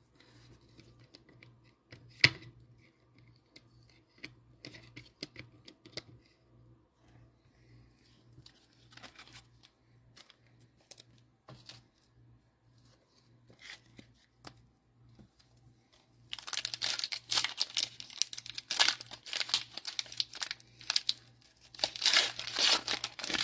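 Light scattered clicks and taps, with one sharper knock about two seconds in. Then, about two-thirds of the way through, the plastic wrapper of a Mosaic football card cello pack crinkles and tears as the pack is ripped open.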